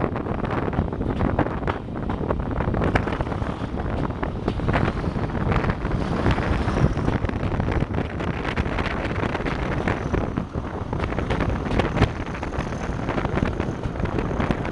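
Heritage diesel locomotive running, with wind buffeting the microphone. A faint high whine rises about five seconds in and then holds steady.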